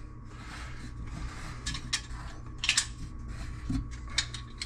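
Metal hand tools being handled: a few light, sharp clinks and clicks, scattered over a couple of seconds, above a low steady hum.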